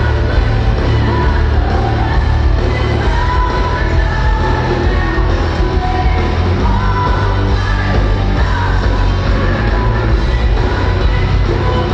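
Hard rock band playing live and loud: distorted electric guitars, bass and drums, with a woman's lead vocal over them. Heard from the audience, with a heavy, boomy low end.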